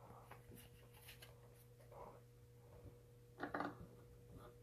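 Faint handling of Yu-Gi-Oh trading cards, light taps and slides as they are sorted and set down on a playmat. A brief louder sound comes about three and a half seconds in, over a low steady hum.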